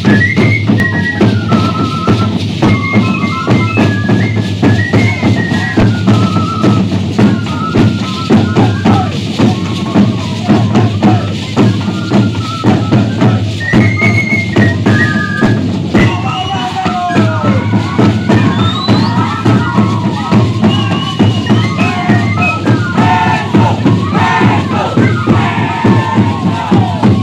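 Shacshas dance music: a high stepping melody over a steady drum beat, mixed with the jingling shake of the dancers' leg rattles.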